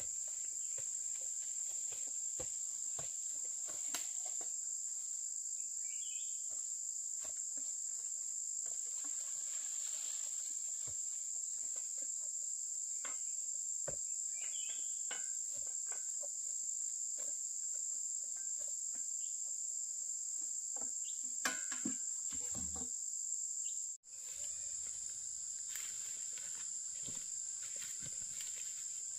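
Steady, high-pitched chorus of insects, with scattered light knocks and rustles and a few louder knocks about three-quarters of the way in.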